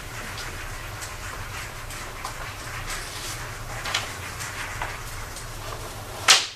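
Marker writing on a whiteboard: short, irregular scratchy strokes over a steady low room hum. Near the end comes a sharp click, the loudest sound.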